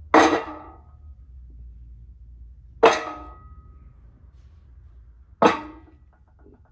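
Three metal clangs about two and a half seconds apart, each with a short ringing tail: heavy grip-handle calibration weights set down on a steel diamond-plate floor scale platform and on each other, as the 500 lb test load for calibrating the scale goes on.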